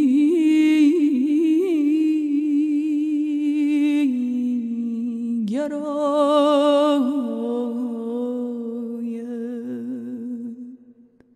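A woman's solo voice sings Persian classical vocal (avaz) without accompaniment: a long, wordless held note with fast warbling ornaments, a quick breath about five and a half seconds in, then a second long note that fades out near the end.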